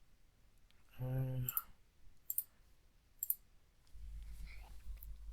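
Three sharp computer mouse clicks about a second apart, with a short hummed voice sound just before the first. A low rumble comes in near the end.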